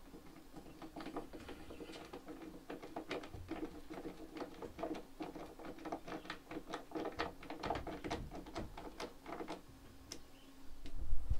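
A quick run of small clicks, several a second, from hand-fastening a hinge onto a pine cupboard door, stopping shortly before the end. A low rumble starts just before the end.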